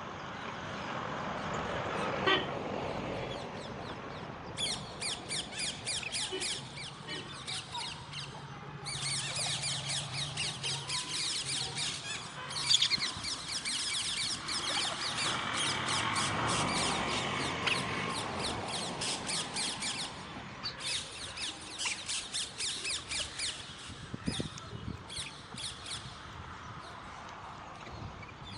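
Parrots chattering in fast runs of short, squeaky repeated calls, each run lasting several seconds.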